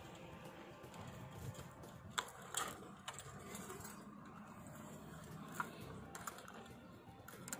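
Faint scattered clicks and taps from hands working a screwdriver and handling small plastic parts of a fiber optic dome closure, with a few sharper clicks around two seconds in and again past five seconds.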